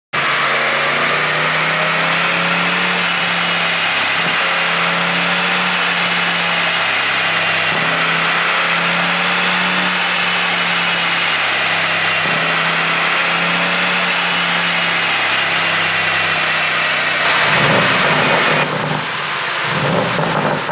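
Porsche Panamera GTS twin-turbo V8 with a pop-and-bang ECU tune, running at a steady idle with a low, even drone. About 17 s in it turns rough and uneven, with crackles from the exhaust.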